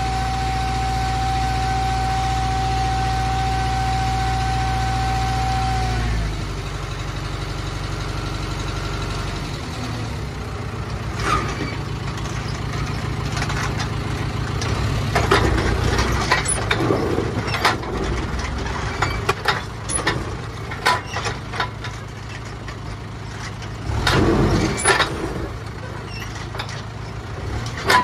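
Tractor engine running with a steady whine while the trailer's hydraulic ram holds the tipper bed raised to unload silage. About six seconds in the whine stops and the engine settles lower. Irregular knocks and rattles from the trailer follow.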